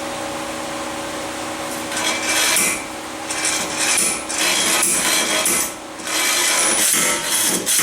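Homemade slide hammer, a heavy steel pipe run along a length of threaded rod, working a seized rear wheel hub bearing loose: about four rasping, scraping strokes starting about two seconds in, each ending in a knock. A steady hum runs under the first two seconds.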